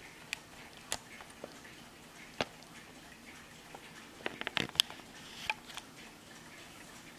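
Warmink pillar mantel clock ticking softly as its pendulum swings, with a few louder, irregular clicks and knocks and a quick cluster of them about four and a half seconds in.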